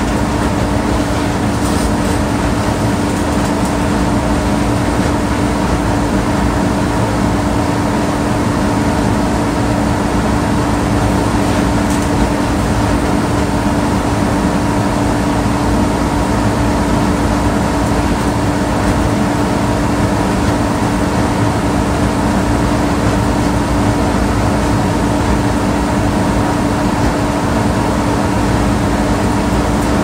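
Air conditioner running steadily: an even rush of blown air with a constant low hum.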